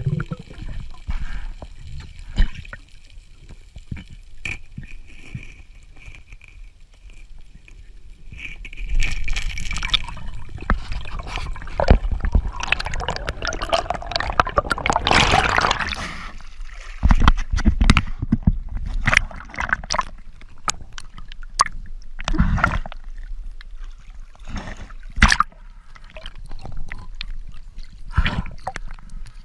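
Water heard through a submerged camera: gurgling and sloshing with a low rumble, many irregular clicks and knocks, and a swelling rush of bubbling noise about halfway through.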